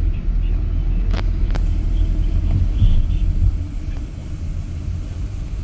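Steady low rumble of a moving taxi, engine and road noise heard from inside the cabin, easing slightly after the middle, with two light clicks just over a second in.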